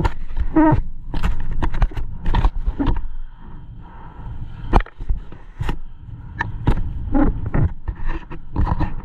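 Strong wind buffeting the microphone in irregular gusts, with a snowmobile engine running steadily underneath.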